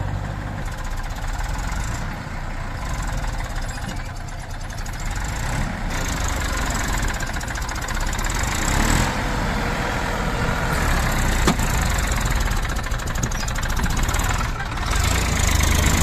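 Heavy diesel machinery engine running steadily, rising and falling a little in level, with a sharp click about eleven and a half seconds in.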